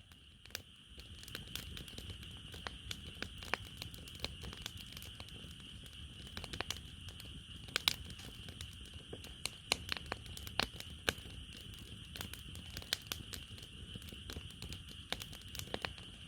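Firewood burning in a campfire, crackling with irregular sharp pops, a few louder ones near the middle. Under it runs a steady high chorus of grass insects.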